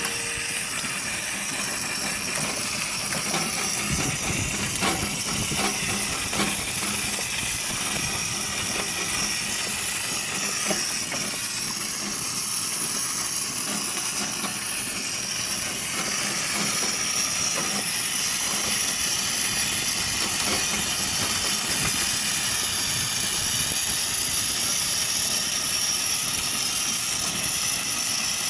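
A steady hiss with scattered faint crackles and ticks, most of them in the first half.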